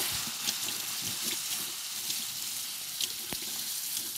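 Diced beef entrecote sizzling steadily as it sears in hot oil in a pan, with a few light clicks from the pan.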